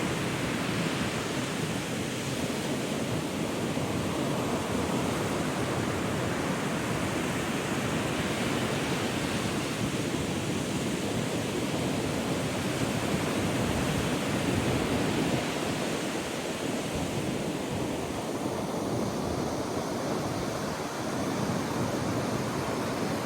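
Surf breaking and washing on a sandy beach in strong wind, a steady rushing roar that swells and eases slowly, with wind buffeting the microphone.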